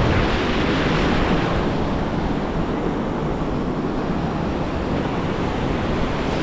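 Ocean surf breaking and washing in white water, a little louder in the first second or two, with wind rumbling on the microphone.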